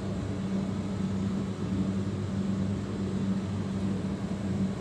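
Steady low mechanical hum over a constant hiss, with no change or break.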